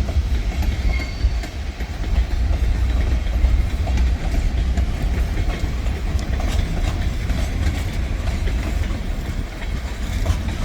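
Freight train's gondola cars rolling past, with a steady low rumble and occasional clicks of steel wheels over the rail joints.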